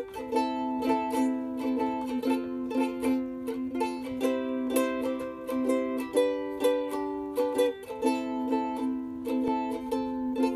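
Ukulele strummed in a steady rhythm, moving between chords.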